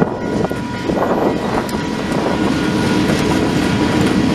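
KiwiRail diesel locomotive passing close by, its engine running with a low rumble and its wheels clacking over the rail joints.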